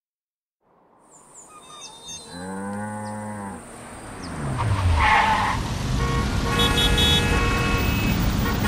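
Sound effects fading up out of silence about a second in: a low, drawn-out animal call whose pitch rises and falls. Then a swelling noisy din with several steady horn-like tones, growing louder toward the end.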